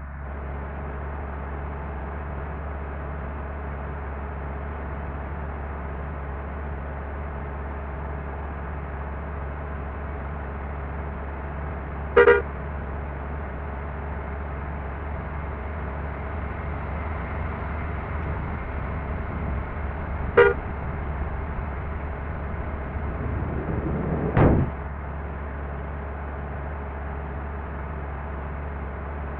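Bus running with a steady low drone, sounded over by two short horn honks about eight seconds apart, then a rising whoosh that swells to a brief loud peak near the end.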